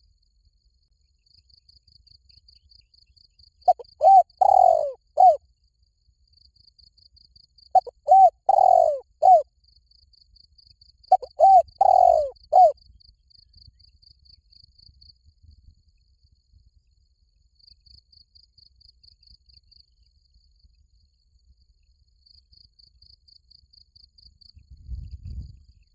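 Spotted dove cooing: three phrases of several notes each, about four seconds apart, over the steady pulsing chirp of crickets.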